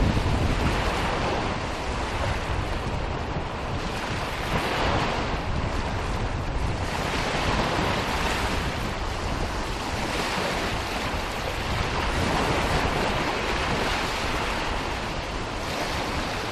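Waves washing on a shore, swelling and easing every few seconds, with wind noise over them.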